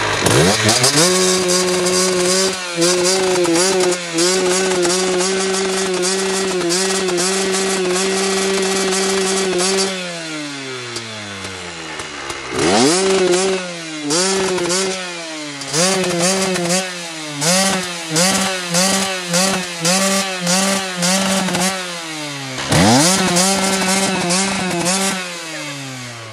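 Koshine 150 two-stroke dirt bike engine revved hard on the stand: held at the rev limiter for about nine seconds with a slight wavering, dropping back, then a string of quick throttle blips about once a second, and a final long rev to the limiter that falls away near the end. It runs on a rich premix of 47 g of oil per litre.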